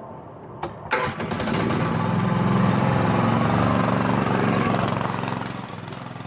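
Yerf Dog go-kart's Honda GX four-stroke engine running as the kart passes close by and pulls away. A sharp click comes about a second in, then the engine grows to its loudest and fades toward the end.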